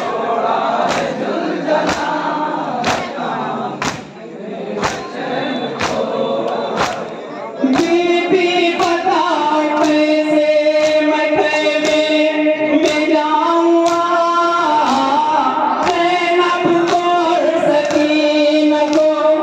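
Crowd of men chanting a noha lament in unison over rhythmic matam, chest-beating strokes about once a second. About eight seconds in, a strong sung lament line with long held notes rises over the crowd while the beating goes on.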